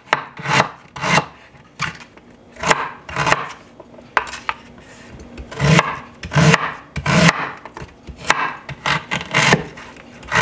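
A chef's knife slicing through raw peeled ginger root and knocking on a wooden cutting board, in a series of irregular cuts with a short pause in the middle.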